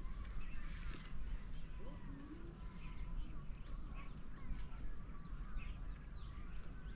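Riverside ambience: small birds chirping again and again over a steady high insect drone, with a low rumble underneath.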